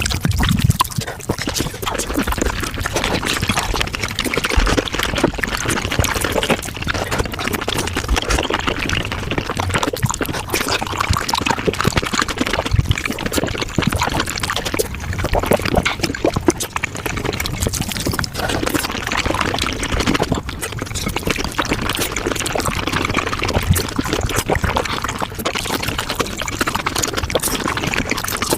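Wet slurping and chewing of raw oysters, sped up about five times, so the squelches and mouth clicks run together into a dense, continuous wet crackle.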